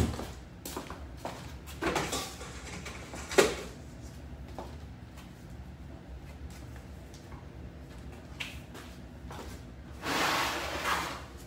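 Kitchen handling sounds: a sharp knock at the start, a few more knocks and clatters over the next few seconds, and a noisy rush about a second long near the end. No mixer motor is running.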